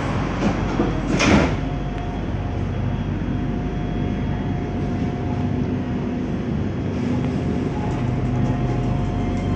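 Commuter train's sliding passenger doors shutting with a sharp thud about a second in, followed by the train's steady running noise with a faint hum as it departs.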